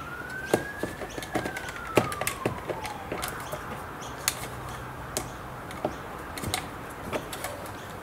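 Irregular sharp plastic clicks and taps as a multi-pin wiring connector is squeezed and worked loose from a car's power-window switch panel. In the first three seconds a single siren tone rises and then falls away.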